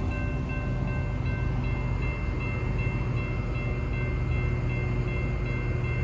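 Railroad grade-crossing warning bell ringing in a fast, even repeat over a steady low rumble.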